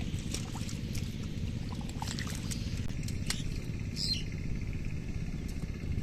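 Bullocks and a wooden plough working through wet paddy mud: scattered small splashes and squelching clicks over a steady low rumble, with a short high chirp about four seconds in.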